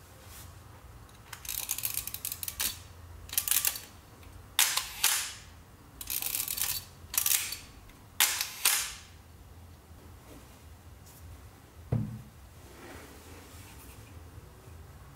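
A Kiev-19 35 mm SLR camera being wound and fired several times: rasping winds of the film-advance lever and sharp shutter and mirror clicks, some paired about half a second apart. There is one dull handling knock near the end.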